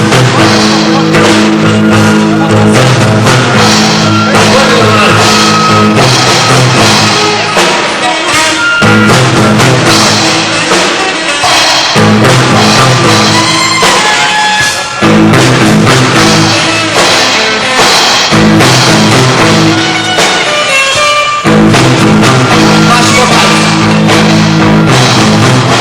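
A rock band playing live at high volume: drum kit, bass and guitars, with singing in places.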